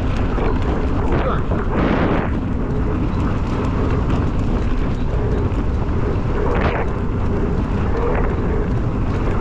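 Steady wind rumble on the microphone, with short hissing swells about two seconds in and near seven seconds.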